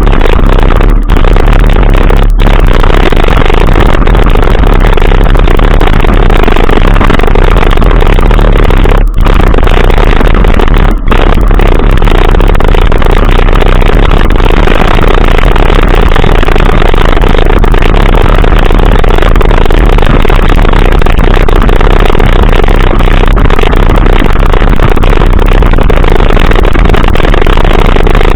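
Continuous loud, rumbling wind and road noise overloading the microphone, as from a camera carried on a moving ride, with a steady low drone under it.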